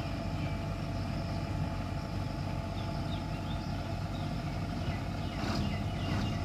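Heavy diesel engines of a crawler excavator and a tipper lorry running steadily, a low even drone. A few short sharp sounds come in near the end.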